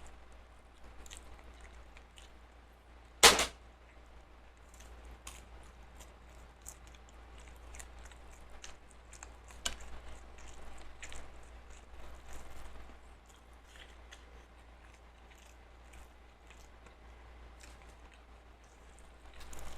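A person eating: quiet chewing with scattered faint clicks. There is one loud, sharp knock about three seconds in.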